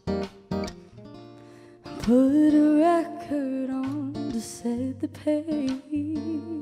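Live band music: a woman sings over strummed acoustic guitar, with a bass guitar and drums behind her. A few guitar strums open the passage, and about two seconds in she comes in with a long sung note that bends in pitch.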